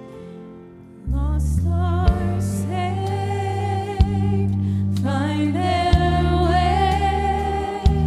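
Live gospel worship song: a soft keyboard fades, then about a second in the full band comes in with heavy bass and a woman singing lead. A sharp hit lands about every two seconds.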